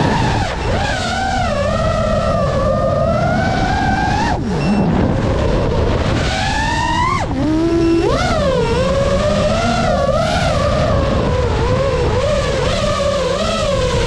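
FPV racing quadcopter's electric motors whining, the pitch rising and falling with the throttle as the drone swoops and turns, with sharp drops in pitch a couple of times as the throttle is cut. Near the end the whine settles into a steadier, wavering tone as the drone skims low.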